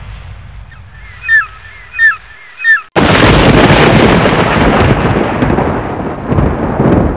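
Sound effects: three short, falling bird-of-prey cries over a low rumble, then about three seconds in a sudden loud clap of thunder that rolls on for several seconds.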